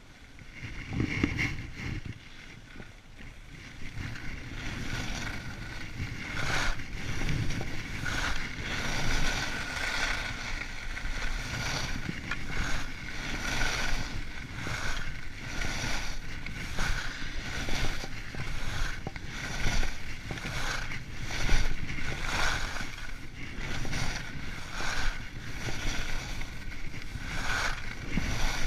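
Skis scraping and hissing across groomed snow in a series of linked turns, a surge of scraping about once a second, over a low rush of wind on the microphone. It is quieter for the first few seconds, then picks up as the skier gathers speed.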